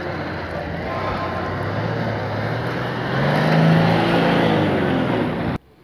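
Off-road 4x4 SUV engine revving under load as it crawls over rough ground and passes close by. The engine note rises and is loudest about three and a half seconds in, then the sound cuts off abruptly near the end.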